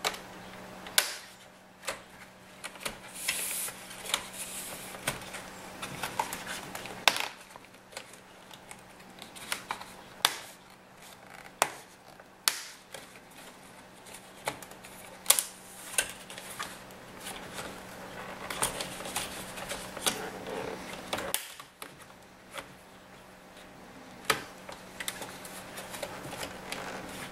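Plastic screen bezel of an HP G60 laptop being pried off its clips: irregular sharp clicks and snaps of plastic, with handling noise between them.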